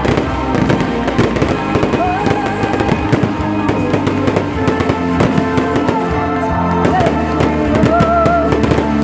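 Fireworks bursting and crackling in rapid succession over loud music with a held, wavering singing voice.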